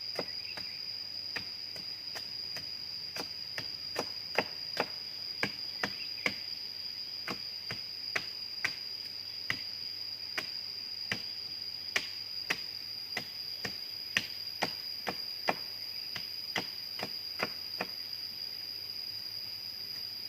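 Repeated sharp chopping knocks, roughly one to two a second at an uneven pace, over a steady high-pitched insect drone.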